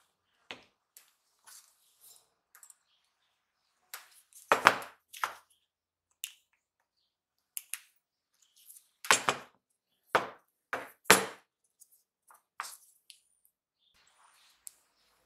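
Steel hand tools and small brass blow-torch parts clinking and knocking against each other and the workbench: scattered light clicks, with a few louder metallic clanks about a third of the way in and a run of them shortly after the middle.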